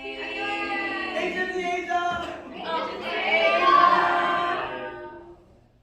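Several voices singing together in long held notes, fading out about five seconds in.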